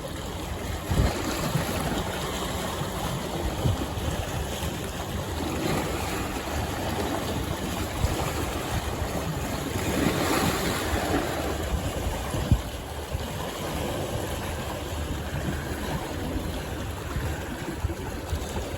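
Steady rushing noise of wind buffeting the microphone, with a few low thumps, the sharpest about twelve seconds in.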